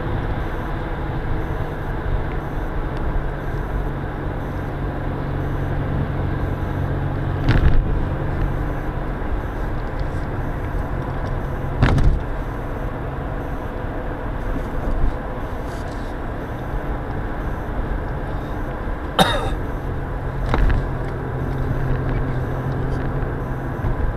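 Car driving, with steady engine hum and road noise heard from inside the cabin. Four short sharp knocks stand out, spread through the drive.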